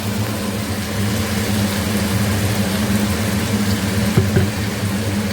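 Onion-ginger-garlic paste sizzling and spitting in hot oil and ghee in a kadai, over a steady low hum, with a couple of light utensil clicks about four seconds in.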